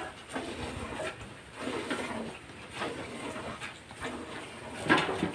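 Cow being milked by hand into a steel bucket: milk squirting from the teats in repeated streams, about two strokes a second, with one louder stroke near the end.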